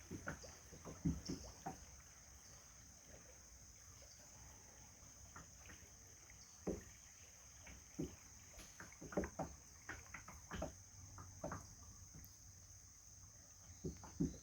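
Kayak paddle strokes: irregular dips and splashes of the paddle in the river, with the occasional light knock, coming in clusters with a lull of a few seconds early on. A steady high-pitched hum runs underneath.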